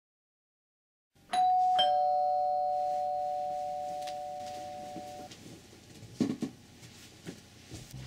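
Two-note ding-dong doorbell chime: a higher note, then a lower one half a second later, both ringing on and slowly fading away. A couple of brief thumps follow about six seconds in.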